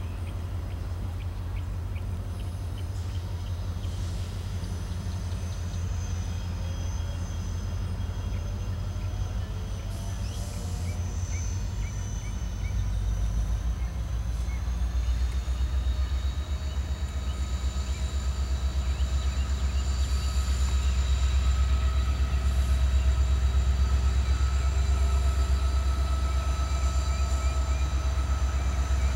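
CSX diesel-electric freight locomotive drifting slowly toward the listener, its engine a deep pulsing rumble that grows louder over the second half. Steady high-pitched whines come in about halfway through and hold.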